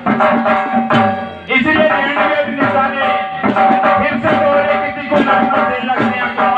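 Gondi Dandar folk dance music: drums beating a steady, driving rhythm under a repeating melody.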